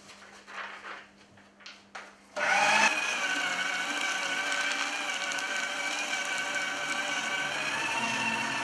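A Rexel desktop paper shredder starts suddenly about two and a half seconds in and runs with a steady whining motor as a sheet of paper is fed through it. Before it starts there are only a few faint clicks and rustles of paper being handled.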